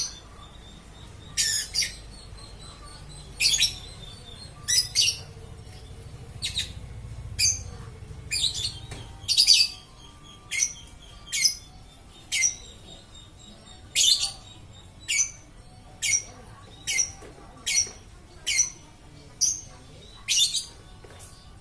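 Lovebird giving short, sharp, shrill chirps over and over, about one call a second, sometimes in quick doubles.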